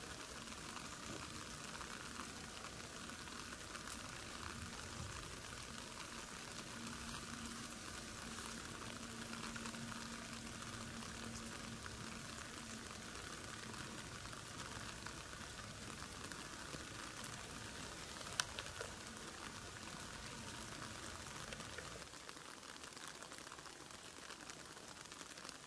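Faint, steady crackling hiss of outdoor background noise from a GoPro lying in grass, with a faint low hum for several seconds in the first half. There is one sharp click about two-thirds of the way through. The hiss drops a little near the end.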